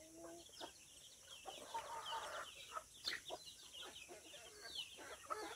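A flock of native chickens clucking faintly, with many short, high calls scattered through it.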